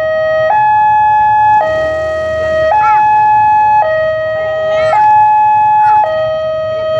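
Railway level-crossing warning alarm sounding. It is an electronic two-tone signal that steps back and forth between a lower and a higher tone, each held about a second. It signals that the barriers are down for an approaching train.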